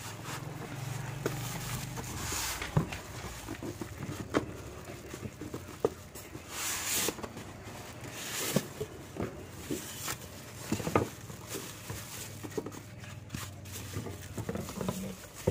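Plastic wrapping crinkling and rustling, with scrapes and knocks of foam packing and cardboard, as a boxed sandwich maker is worked out of its packaging. The rustles come in short irregular bursts, among scattered taps and clicks.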